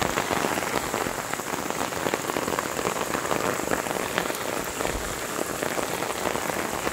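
Steady rain falling on leafy garden plants, a dense mass of small drop impacts.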